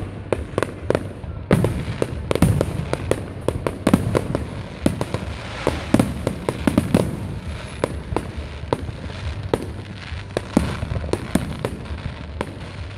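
Aerial fireworks bursting in a continuous barrage of sharp bangs, several a second and overlapping, over a steady low rumble.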